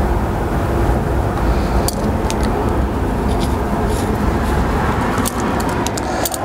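Light metallic clicks and taps as a brass air fitting is threaded by hand into the air inlet of a pneumatic die grinder, a few scattered clicks at first and more near the end, over a steady low rumble.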